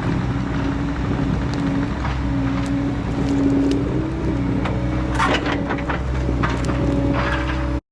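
Diesel engine of a compact loader or excavator running steadily, with a strong droning hum and scattered metallic knocks and rattles, a cluster of them about five seconds in. The sound cuts off suddenly near the end.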